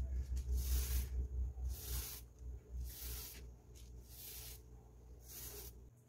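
Small paint roller rolled back and forth over a refrigerator's painted metal side, a hiss with each stroke, about one stroke a second, growing softer toward the end. A low rumble runs under the first few strokes.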